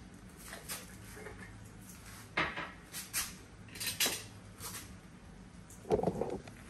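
Kitchen utensils clinking against pots and dishes while cooking: a few separate clinks about a second apart, then a heavier clatter near the end, over a faint low hum.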